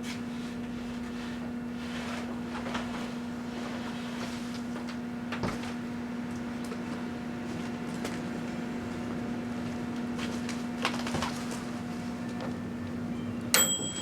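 Microwave oven running with a steady electrical hum, with occasional faint crackles and pops from the fireworks inside. It shuts off with a sharp click near the end.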